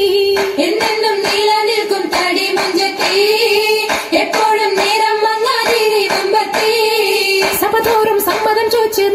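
Oppana performance: voices singing a Mappila song in a steady, repeating melody, with rhythmic group hand-clapping keeping time throughout.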